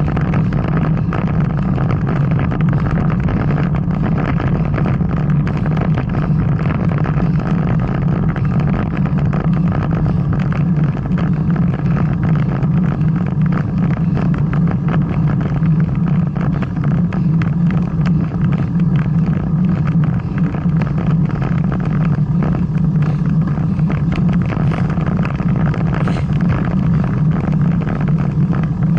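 Wind rumbling steadily on a camera microphone, carried by a rider on a bicycle.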